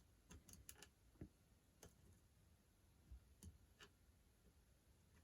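Faint, irregular small metallic clicks of a lock pick working inside a padlock's keyway, a cluster in the first two seconds and a few more later.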